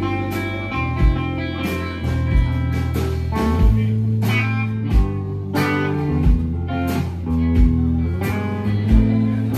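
Live rock band playing an instrumental passage: electric guitars and bass over a drum kit, with a steady kick-drum beat about three every two seconds.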